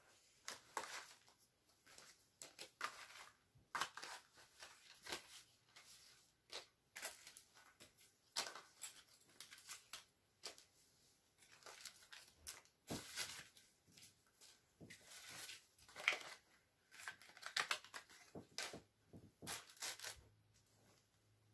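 Small items and plastic packaging being handled and set down on carpet: irregular rustling, crinkling and light clicks.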